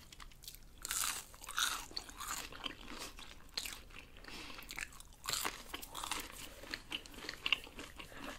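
Crunching and chewing of crispy fried food (onion rings and chicken fries): many irregular crisp bites followed by chewing.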